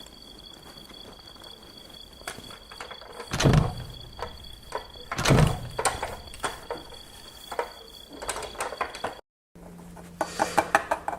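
A door being opened and shut: two loud thuds about two seconds apart among lighter clicks and rattles, over a steady high whine. The whine stops at a brief cut, and a quick run of clicks follows near the end.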